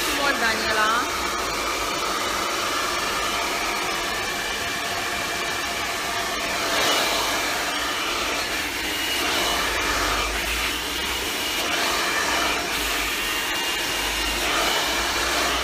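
Handheld hair dryer running steadily while blow-drying long hair over a round brush.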